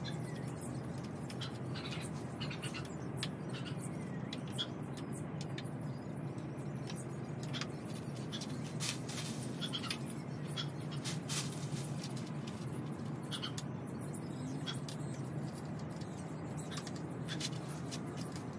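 Irregular light clicks and taps of a wooden garden bench being assembled by hand, thickest about halfway through, over a steady low hum.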